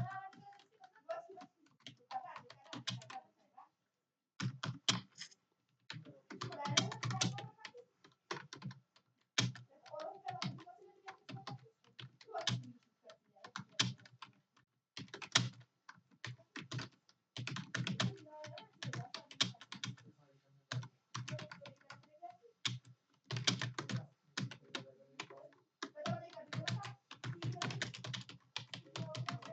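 Computer keyboard being typed on in quick runs of key clicks, broken by short pauses.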